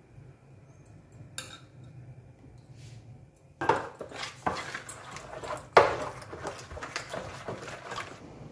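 Metal spoon scraping and knocking against a mixing bowl as yogurt is stirred into a thick spice paste. The stirring starts about three and a half seconds in, with two loud knocks of the spoon on the bowl.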